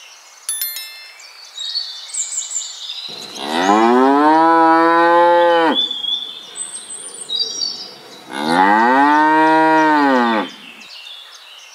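A cow mooing twice, two long moos of about two and a half seconds each, the pitch rising then falling. Faint high chirping runs in the background.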